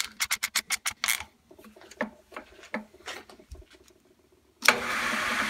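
A rapid run of sharp clicks for about a second, then a few single clicks, as the spindle lock is worked by hand. Near the end the 3-in-1 mill-lathe's motor switches on suddenly and runs steadily with the chuck spinning, with no sound of the spindle lock rubbing.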